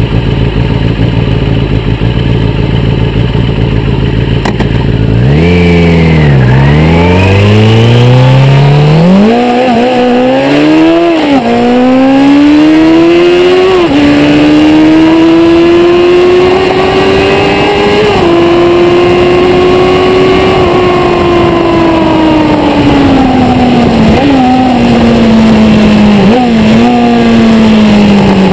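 1991 Kawasaki ZZR600 D's inline-four engine, through an IXIL aftermarket exhaust, accelerating hard through the gears. After a few seconds of steady wind rush, the engine note climbs in quick steps, dropping back at each upshift. It then holds a long high-revving pull near 10,000 rpm and falls steadily as the bike slows.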